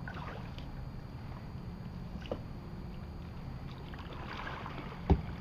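Kayak paddling on calm water: the paddle blade swishing and dripping, with a few light clicks and one sharp knock about five seconds in.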